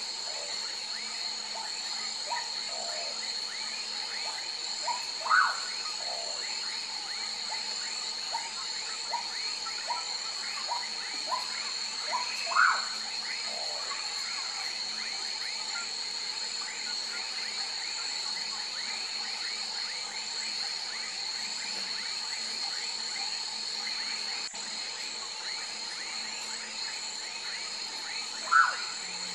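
A common pauraque gives three loud, short rising whistled calls, spaced several seconds apart, over a chorus of many small chirping frog calls from a swamp. A steady high-pitched hum runs underneath.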